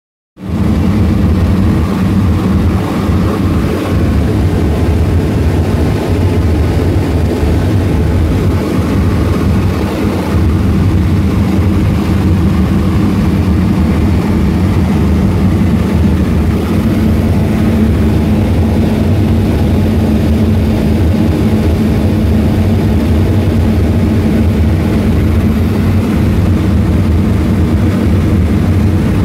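Boeing B-17 Flying Fortress in level flight, heard from inside the top gunner turret: its four Wright R-1820 Cyclone nine-cylinder radial engines and propellers droning loudly and steadily in a deep, even hum.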